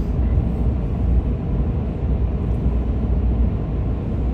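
Steady low rumble of road noise inside a moving 4x4 vehicle's cabin, its mud-grip tyres and engine running at a constant pace.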